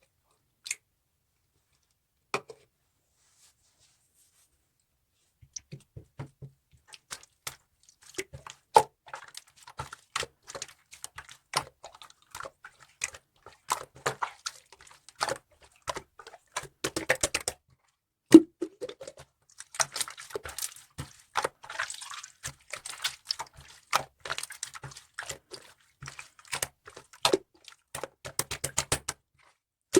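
Slime being squeezed, pressed and poked by hand: a dense, irregular run of small sticky clicks and pops, starting about five seconds in after two lone clicks.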